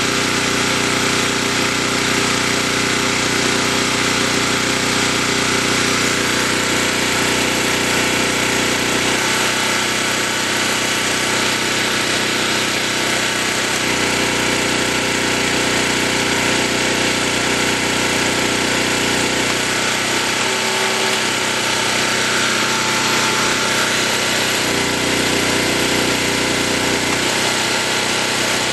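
Portable generator's small four-stroke engine running steadily under about a 50% electrical load; its low note shifts a few times.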